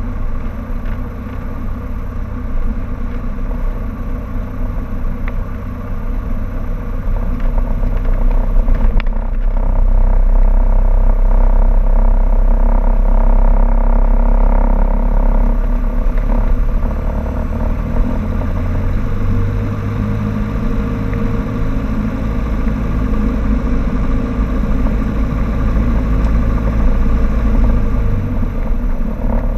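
Cessna 152's four-cylinder Lycoming engine and propeller running at taxi power, heard from inside the cabin. Power comes up about a third of the way in and eases back about halfway through.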